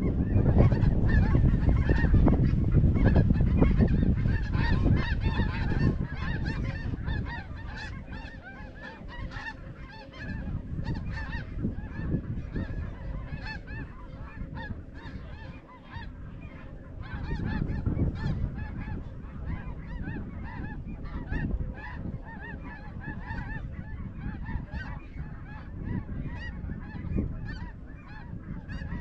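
A dense chorus of snow goose calls, many short, high, overlapping honks going on without a break. A loud low rumble lies under them for the first six seconds or so.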